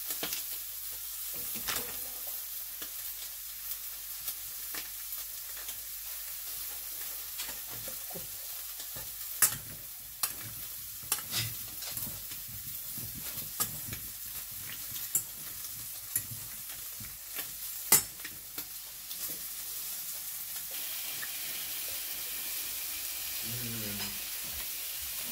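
Chops and sausages frying in a pan: a steady sizzle with scattered sharp pops of spitting fat, the loudest about ten seconds in and again near eighteen seconds.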